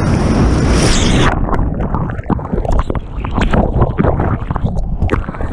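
Breaking whitewater rushing past with wind on the microphone, then about a second in the sound cuts to a muffled underwater churn as the camera is pulled under the wave: turbulent water and bubbles popping and gurgling.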